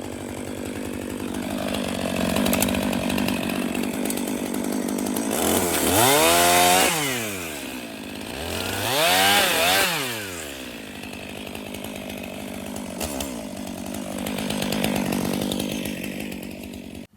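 Stihl two-stroke chainsaw running, revved up twice to full throttle about six and nine seconds in, its pitch climbing and then falling back each time.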